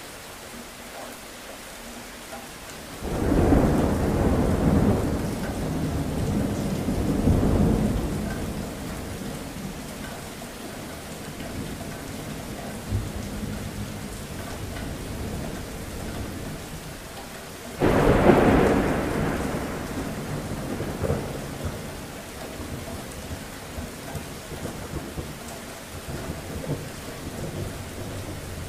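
Steady rain falling, with two claps of thunder: one about three seconds in that rolls on for several seconds, and a second, sudden one a little past halfway that dies away slowly.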